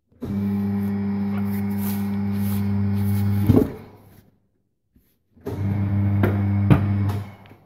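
An electric motor running with a steady hum in two runs, the first about three seconds and the second under two, each starting and stopping abruptly, with sharp clicks and a loud clack as the first run stops.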